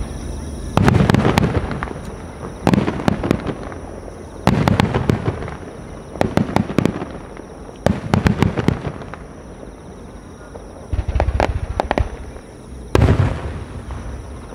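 Aerial firework shells bursting one after another, about seven times, every second and a half to two seconds. Each burst is a deep boom followed by a cluster of sharp crackles that fades out.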